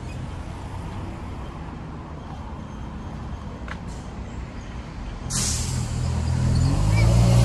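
Road traffic: a steady low rumble of engines, then about five seconds in a sudden hiss and a vehicle engine growing louder as it comes close.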